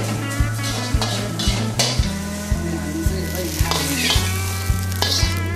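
Metal ladle knocking and scraping against a wok as fried rice sizzles over a gas flame, about two strikes a second. A steady low hum runs underneath.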